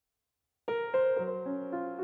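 Dead silence, then background piano music starts abruptly about two-thirds of a second in, with sustained notes over a held low note.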